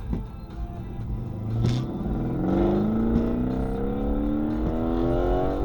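BMW engine accelerating hard, its pitch rising steadily as it pulls, with one sharp exhaust pop just before the climb begins.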